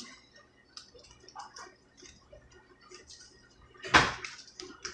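Thickening glue slime being stirred with a stick: faint sticky clicks and squelches, with one loud smack about four seconds in.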